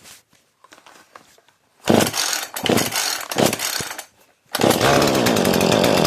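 Two-stroke Husqvarna chainsaw being pull-started. Two or three pulls bring short, uneven bursts of firing, then the engine catches about four and a half seconds in and keeps running steadily.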